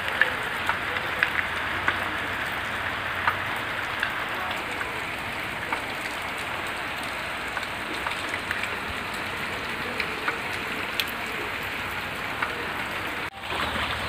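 Heavy rain falling steadily, with individual drops striking close by among the continuous hiss. The sound drops out abruptly for a moment near the end.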